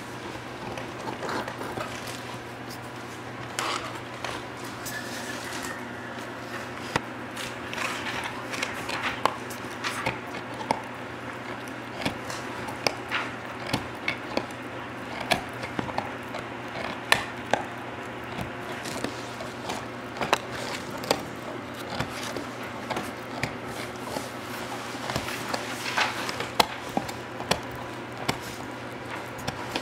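Golden retriever puppy gnawing on a white chew bone: irregular crunching and clicking of teeth on the bone, with the sharp clicks growing more frequent after the first few seconds.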